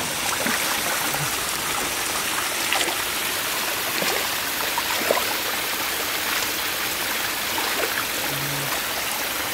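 Shallow stream water running steadily, with a few brief splashes around the middle as catfish thrash under the hands in the water.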